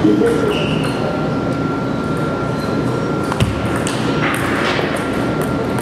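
Table tennis ball clicking sharply off paddles and the table in a quick rally, with one heavier knock about halfway through. A faint steady high tone runs underneath.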